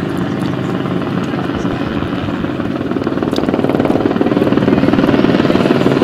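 Helicopter flying overhead, its rapid rotor chop growing louder from about halfway through as it comes closer.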